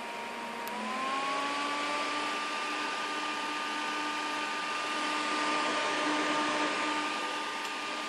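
NZXT FX-140LB 140 mm case fan speeding up to its high setting about a second in: its whine rises in pitch and gets louder, then holds steady over the rush of air.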